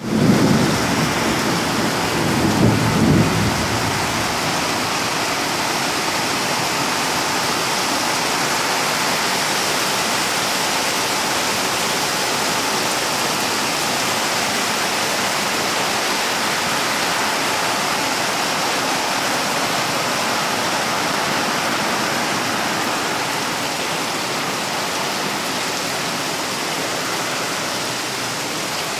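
Heavy rain falling steadily, with a low rumble in the first few seconds.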